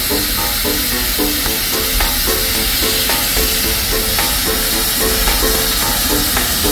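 Steady hiss of steam escaping from a standing narrow-gauge steam locomotive, under music with a regular, repeating melody.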